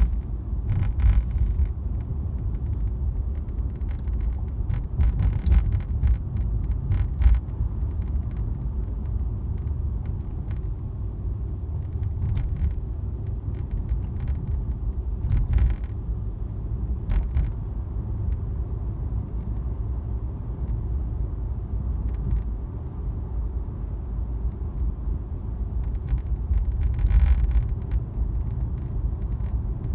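Inside the cabin of a moving Mercedes-AMG C63 S (W205): a steady low road and drivetrain rumble, broken by scattered short rattles and clicks in irregular clusters. The owner attributes these to the dashboard screen rattling in its mount.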